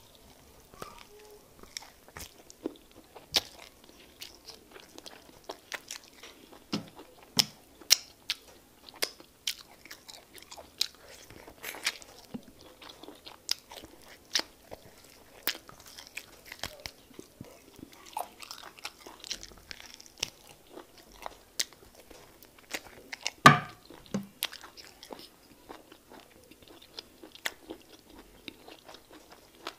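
Close-miked wet chewing and mouth clicks of a person eating soft fufu with egusi soup by hand, with many short smacking clicks scattered throughout and one louder one about two-thirds of the way through.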